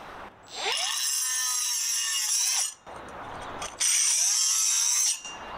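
Milwaukee M12 FCOT 30,000 rpm cut-off tool spinning up and cutting into a white ceramic tile, in two passes of about two seconds and about a second and a half. The high whine rises as the motor gets up to speed at the start of each pass.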